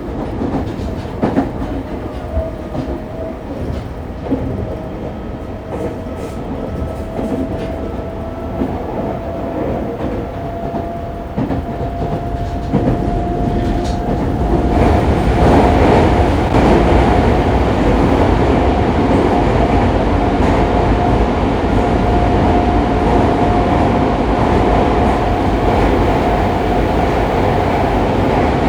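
Fukuoka City Subway 2000-series train running at speed, heard inside the passenger car: wheel and rail clatter under a steady whine that slowly rises in pitch. About halfway through, the running noise gets louder and fuller.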